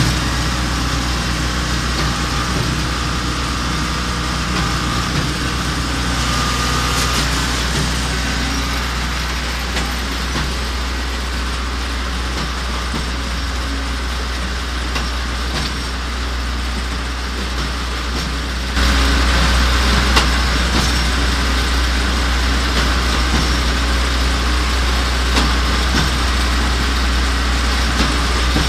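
Diesel engine of a mobile concrete mixer pump running steadily, with a deep steady hum under broad mechanical noise. About two-thirds of the way through it gets suddenly louder and brighter and stays so.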